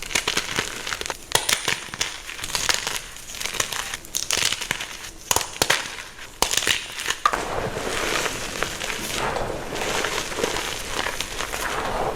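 Soft gym chalk being crushed, crunching and crackling in many sharp little cracks. About seven seconds in it turns into a denser, continuous crumbling.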